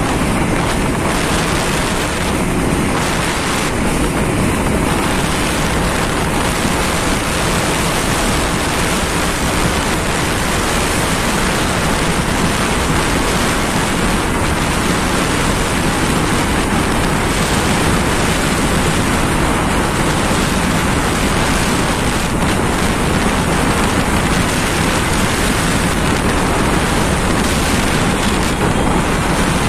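Steady, loud rush of wind on the microphone, an even noise with no distinct events in it.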